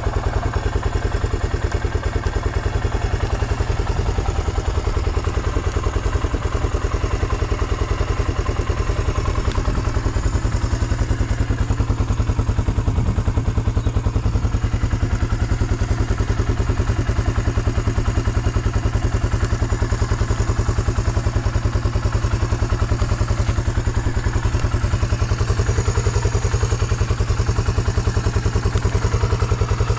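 Suzuki DR350 (K406) single-cylinder four-stroke motorcycle engine idling steadily, with even firing pulses; the seller describes it as free of abnormal noises.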